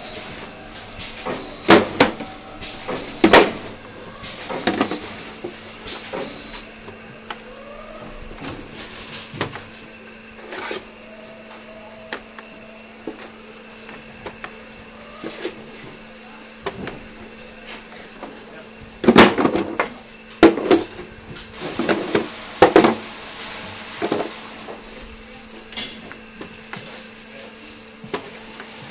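Metal ball valves clinking and clunking as they are handled and set into the holders of a conveyor, in clusters of sharp knocks, over the steady hum of the marking line with a faint high whine.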